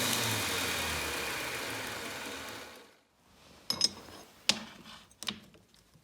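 An electric power tool running down after being switched off, its hum sinking in pitch and dying away about halfway through. Then four sharp metallic clicks and knocks as steel parts are handled and set down.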